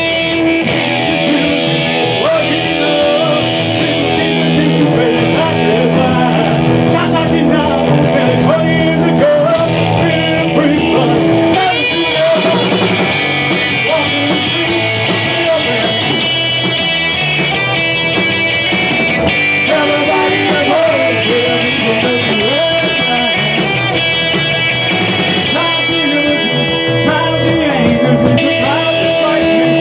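Live rock band playing loud: electric guitars and drums, with a man singing into a microphone.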